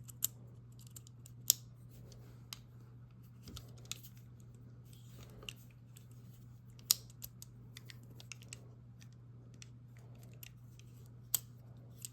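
Small metal clicks and scrapes of a handcuff key being worked in a pair of handcuffs to unlock them, with a few sharp louder clicks scattered through, over a steady low hum.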